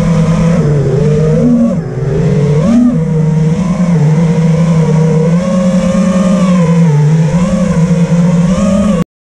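Five-inch FPV racing quadcopter's brushless motors and propellers buzzing, heard through the onboard GoPro, the pitch dipping and rising as the throttle changes. The sound cuts off abruptly near the end.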